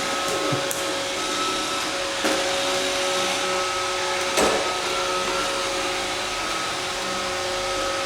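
Roomba robot vacuum running: a steady whirring hum with a thin, constant whine, broken by two short sharp knocks about two and four and a half seconds in.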